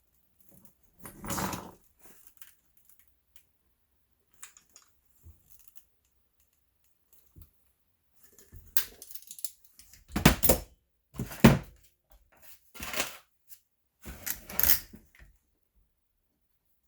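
Hands working a leather tool belt and its metal hardware: a few faint clicks, then a run of about five short rustling, clunking handling bursts in the second half.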